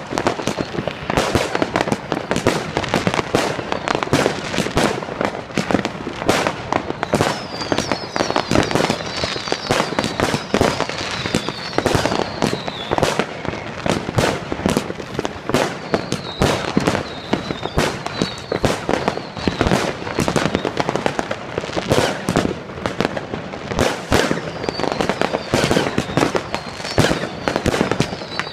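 Consumer fireworks going off without pause: a dense, continuous volley of bangs and crackles from firecrackers and rockets, with thin high whistles falling in pitch now and then.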